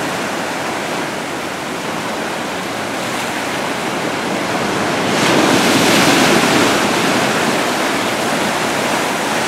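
Ocean surf washing over a rocky shore, a steady rush that swells louder about halfway through, with some wind on the microphone.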